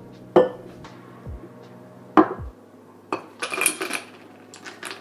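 Glass-and-metal cocktail shaker being handled after shaking: two sharp clanks, then a second of ice and liquid clinking as the drink is poured from the mixing glass into a glass.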